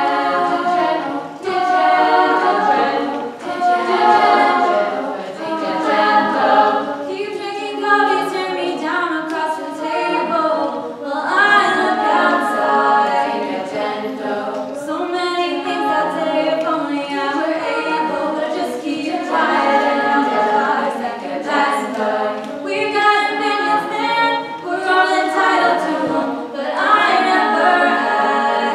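A girls' a cappella group singing a pop song, a solo voice over the others' backing vocals, in phrases with short breaks between them.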